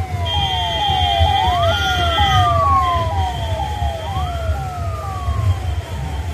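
Siren sounds: one repeating a quick falling chirp about two to three times a second, the other rising sharply then falling slowly in a long wail every couple of seconds, over a low rumble.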